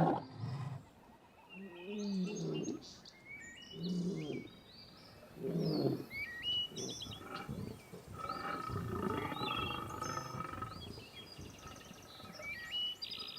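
Male lions roaring: a run of deep calls about two seconds apart, then a longer one, with birds chirping faintly in the background.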